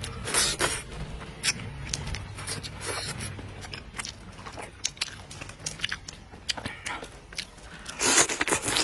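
A person chewing and biting into chicken close to the microphone: irregular wet smacks and clicks, with a louder stretch near the end.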